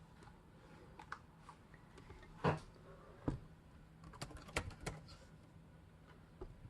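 Keys tapped on an ASUS VivoBook 15 X560UD laptop's keyboard: scattered, irregular clicks with a quick run of taps about four seconds in, as the machine is tried out after a RAM upgrade.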